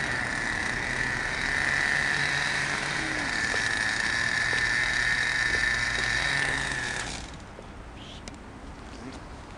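Radio-controlled toy monster truck running on asphalt, its motor giving a steady high whine that cuts off about seven seconds in.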